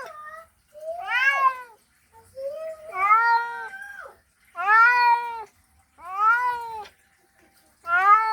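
Domestic cat meowing in a series of five calls, each about half a second to a second and a half long, rising then falling in pitch, with short pauses between.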